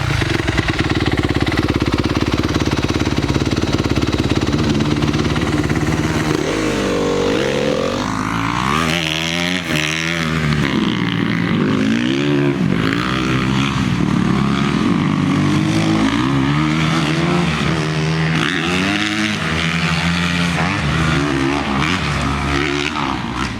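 Dirt bike engine running at a steady pitch, then from about six seconds in revving up and down over and over as the bike is ridden and shifted.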